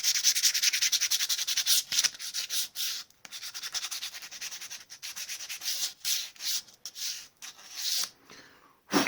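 Sandpaper rubbed by hand in quick back-and-forth strokes on a plywood trunnion hardened with cyanoacrylate glue, easing a fit that is too tight. The strokes are hardest for the first three seconds, then lighter and more broken. There is a short knock near the end.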